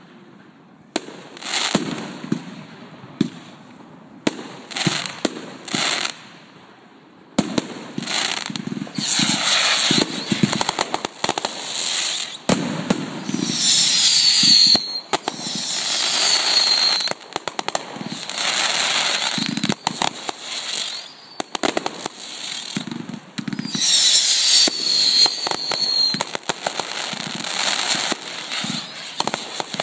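Aerial fireworks: a few separate bangs over the first seven seconds, then a dense barrage of shell bursts and crackling from about seven seconds in, with falling whistles twice.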